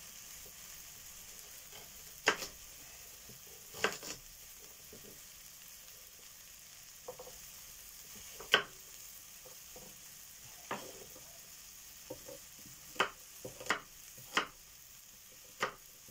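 Beef chunks browning in an enamelled cast-iron casserole pot, sizzling steadily with a sharp spitting pop every few seconds, more often near the end.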